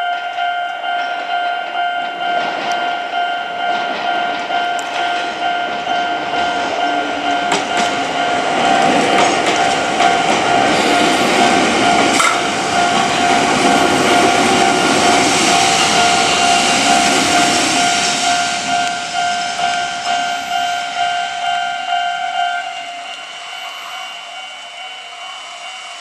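A Japanese level crossing's electronic warning bell rings steadily while an electric train runs over the crossing, its wheel and rail noise building to its loudest in the middle with a few sharp clicks from the rail joints. About three-quarters of the way through, the train noise fades and the bell's loudest tone stops.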